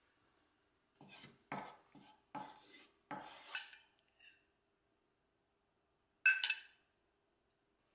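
A metal cooking pot set down on a wooden counter, and a wooden spatula knocking and scraping inside it. Later, a metal spoon clinks twice against a small glass of saffron water.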